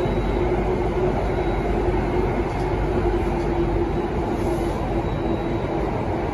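Cabin running noise of an Alstom Metropolis C830 metro train under way in a tunnel: a steady rumble of wheels on rail with a steady hum that fades a little near the end.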